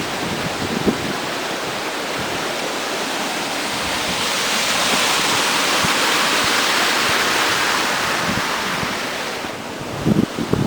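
Water rushing out of a lake through a dam's outflow, a steady rushing noise that grows louder through the middle and drops back near the end, where a few low bumps of wind or handling on the microphone come in.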